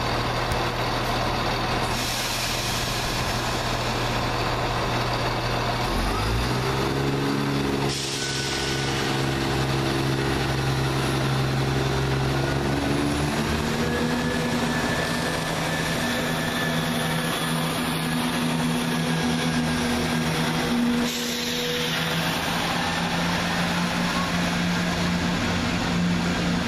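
Diesel engines of a Class 170 Turbostar diesel multiple unit pulling away under power: a steady drone whose pitch climbs about six seconds in and steps up again a few seconds later, then holds at the higher note as the train accelerates.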